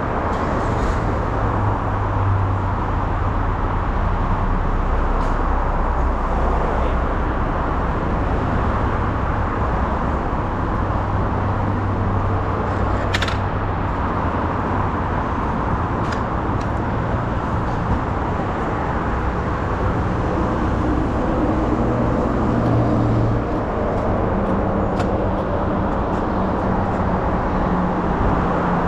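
Yamaha YZF-R6 inline-four with a full-system aftermarket exhaust running at a steady engine speed while riding, under a constant rush of wind and road noise. A higher engine note comes in about two-thirds of the way through.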